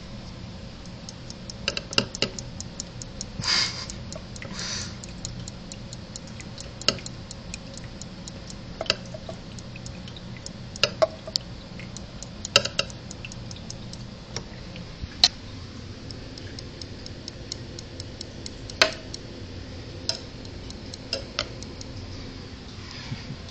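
Metal feeding tongs clicking and tapping at irregular moments while a water dragon is hand-fed, over a faint, fast, even ticking.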